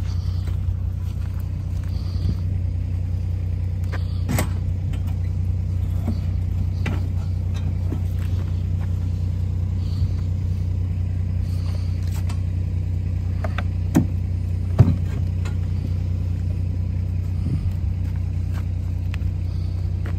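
Avant 528 compact loader's diesel engine running steadily at a low, even pitch, with a few brief knocks and clunks, the loudest two about a second apart near 14 seconds in.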